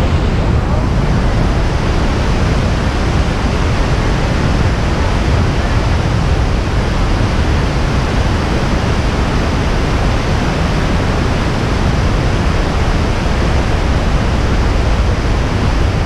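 Iguaçu Falls: a steady, loud rush of falling water, a deep even noise with no breaks.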